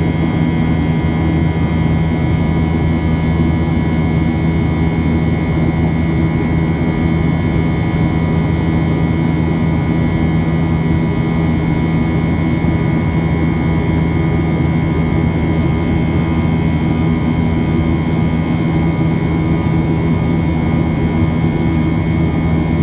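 Jet engine noise heard inside the cabin of a Boeing 737 climbing after takeoff: a steady deep drone with several thin, steady whining tones above it.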